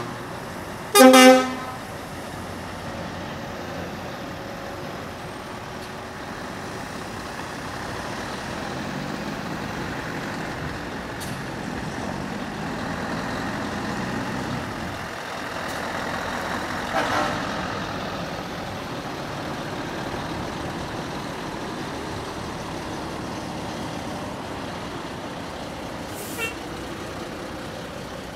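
A truck horn blasts once, briefly, about a second in, followed by the steady running of heavy lorry engines as trucks drive past.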